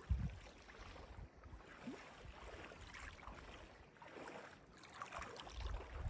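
Small waves lapping and splashing on a lake's stony shore, with wind buffeting the microphone: a gust right at the start and more rumble near the end.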